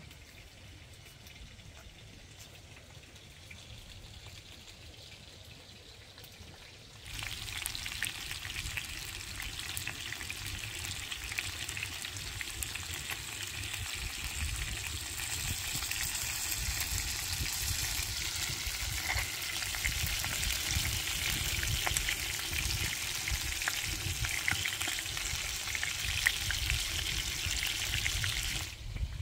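Food frying in hot oil, a dense crackling sizzle that starts suddenly about seven seconds in and cuts off just before the end. Before it, only a faint low rumble.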